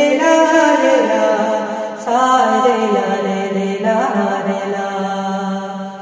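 Vocal music: a chant-like song sung in long held phrases, with a short break about two seconds in.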